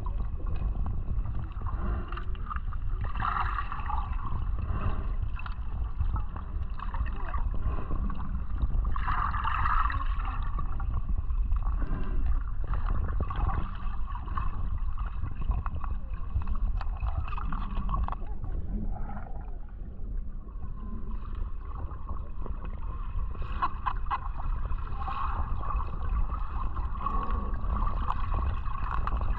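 Underwater ambience heard through a waterproof action-camera housing held below the surface: a steady low rumble of moving water with gurgling, brighter patches of sloshing about 3 and 9 seconds in, and a faint steady high tone throughout.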